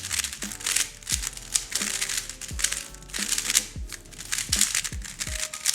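Rapid, crackly clicking of 3x3 speedcubes being turned fast during a solve, over background music with a steady electronic kick-drum beat.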